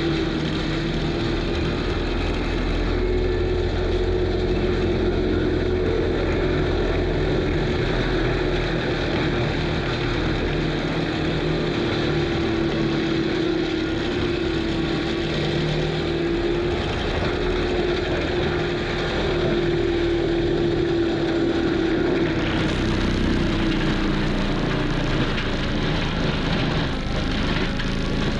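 Kubota SVL95 track loader's diesel engine running hard with an FAE forestry mulcher head driven by it: a dense, steady machine noise with a steady whine, and the whine fades out about five seconds before the end.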